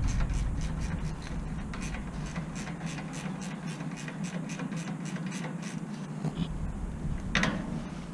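Light clicking and scraping of hand tools on a bus underside, a few clicks a second, with one louder clank about seven seconds in, over a low steady rumble.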